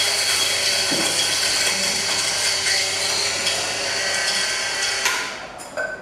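Carlton Kohi KH-800 electric coffee grinder running and grinding a few coffee beans to flush out old grounds after the grind setting was changed to medium. A steady whining grind that winds down and stops about five seconds in, followed by a short knock.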